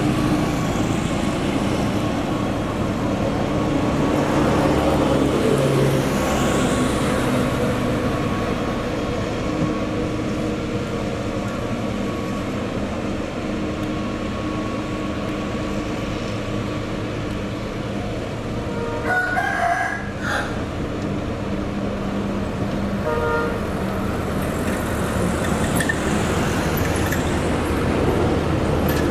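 Diesel engines of road-building machinery, a motor grader and road rollers, running steadily, with traffic passing on the road and swelling twice. About two-thirds of the way through a brief pitched call rises over the engines, with a shorter one a few seconds later.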